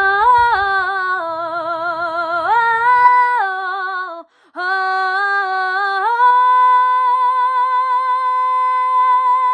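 A woman singing solo without accompaniment, with a wide vibrato. She breaks off briefly about four seconds in, then holds one long high note until near the end.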